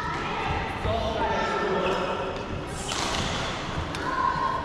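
Badminton players' shoes squeaking and thudding on a wooden sports-hall floor during a rally, with voices echoing in the large hall. The squeaks come about a second in and again near the end.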